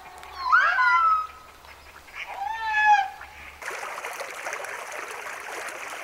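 Two loud, drawn-out bird calls about two seconds apart, each rising then falling in pitch. After about three and a half seconds the sound cuts abruptly to the steady rush of running water.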